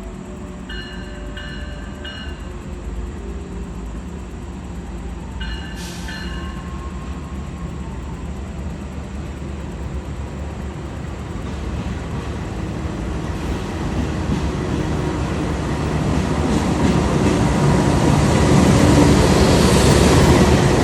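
The Jayabaya passenger train approaching on the rails, its running noise growing steadily louder through the second half. Two brief groups of short, repeated high tones sound in the first seconds.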